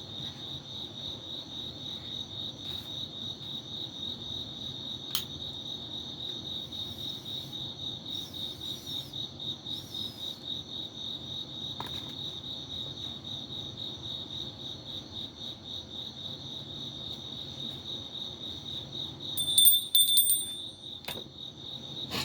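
Crickets chirring steadily in a fast, even pulse. Near the end a short, louder high ringing sounds over them.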